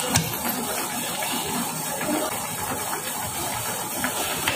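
Pot of noodle soup boiling on a gas stove: a steady bubbling hiss, with a sharp click just after the start and another near the end.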